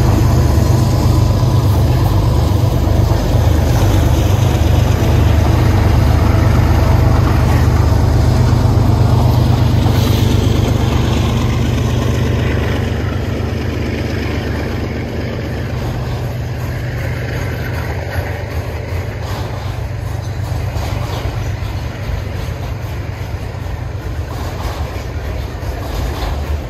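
Diesel freight locomotives passing close by, their engines running with a deep, steady rumble. About halfway through the engine sound fades, and the quieter rolling of autorack freight cars on the rails takes over.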